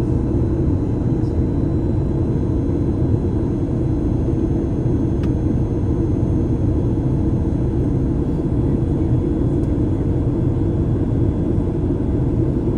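Steady cabin noise of a Boeing 737 airliner in flight, heard from inside the cabin: an even, low rumble of engines and rushing air with a faint steady hum.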